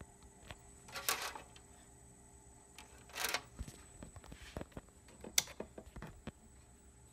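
Handling noise from a handheld phone being moved about: two short rustling swells, then a run of small sharp clicks and taps. Underneath is a faint steady high-pitched whine and a low hum.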